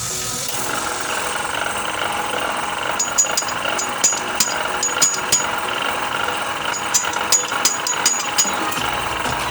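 A steady mechanical running noise with irregular sharp metallic clicks and taps, clustered between about three and eight and a half seconds in.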